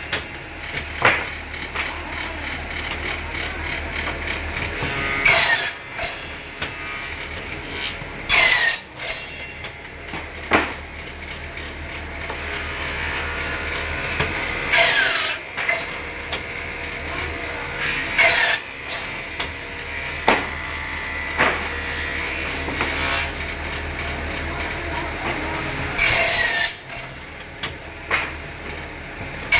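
Woodworking machine running with a steady hum, broken every few seconds by a loud clattering stroke, most of them followed by a short falling squeal.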